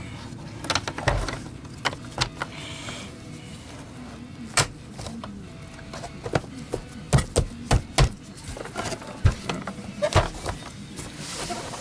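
A vacuum power brush's parts being handled: irregular sharp clicks and knocks, with brief rubbing scrapes about three seconds in and near the end.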